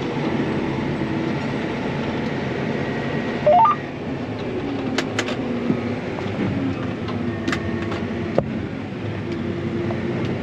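Farm tractor engine running steadily under load, heard from inside the cab while catching a combine's unload on the go. About three and a half seconds in, a short rising series of four electronic beeps sounds, with a few sharp clicks later on.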